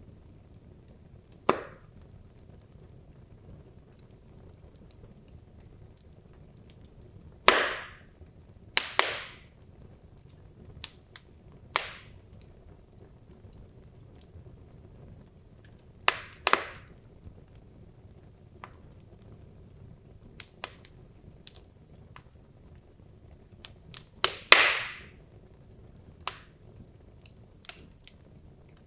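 Wood logs burning in a fireplace: sharp, irregular pops and cracks a few seconds apart, a handful of them louder with a brief crackling tail, over a faint steady low rush from the flames.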